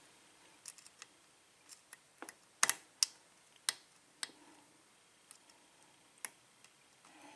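Lock pick clicking against the pins inside a 5-pin Ilco-Corbin pin-tumbler cylinder during single-pin picking: about a dozen light, irregular clicks, the loudest about two and a half seconds in.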